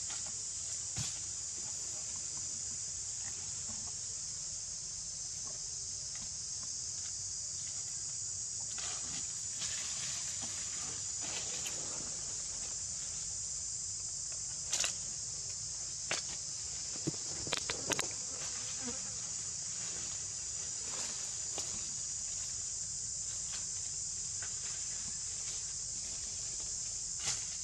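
A steady, high-pitched chorus of insects, with a few short, sharp clicks scattered through the middle.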